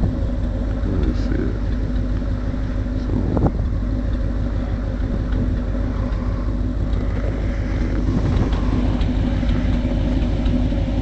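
1947 Bombardier snowmobile's engine running steadily.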